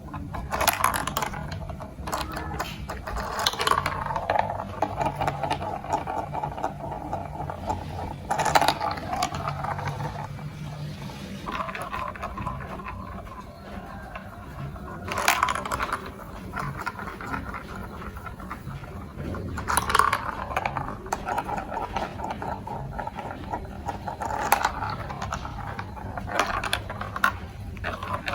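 Marbles rolling and clattering along a plastic building-block marble-run track, with a steady rolling rattle broken by repeated sharp clicks and knocks as they drop and hit the pieces.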